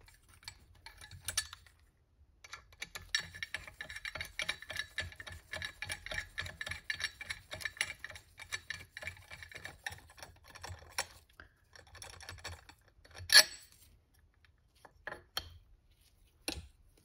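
Hand screwdriver turning in the fasteners of the supercharger's intake pipe, ticking rapidly for several seconds. A single sharp knock about 13 seconds in is the loudest sound, followed by two faint clicks near the end.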